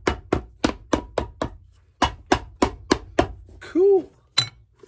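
Hammer tapping rapidly at shoe-repair work, about three strikes a second in two runs with a short pause between them. Near the end a brief hummed voice sound, the loudest moment, is followed by one last tap.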